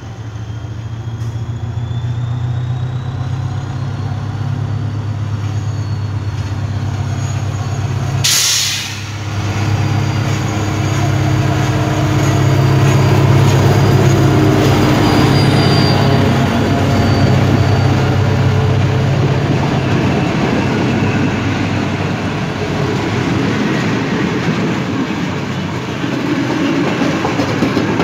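SU42 diesel locomotive hauling passenger carriages past at speed: a steady low engine drone grows louder as it approaches, with a high rising whine in the first few seconds and a short burst of hiss about eight seconds in. In the second half, the carriage wheels clatter over the rail joints as the coaches roll by.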